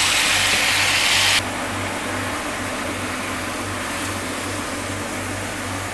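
Chicken pieces sizzling in oil in a nonstick frying pan as they are stirred with a wooden spatula. About a second and a half in, the sizzle drops suddenly, leaving a quieter steady hiss with a low hum beneath.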